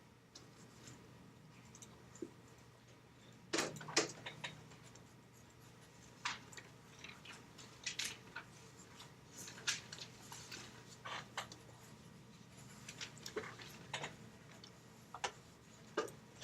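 Graphite pencil scratching on paper in short, irregular strokes, over a steady low hum.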